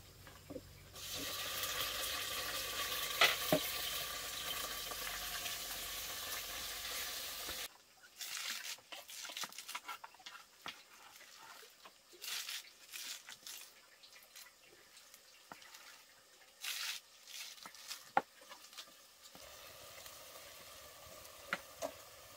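Meat frying in a pot over a wood fire, a loud steady sizzle that stops suddenly about eight seconds in. A cleaver chopping green vegetable stems follows, as irregular sharp knocks. Near the end comes a fainter sizzle as the meat is stirred in the pot.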